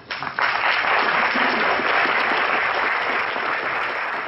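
Audience applauding: a dense burst of clapping that starts at once, is at full strength within half a second, and slowly tapers off.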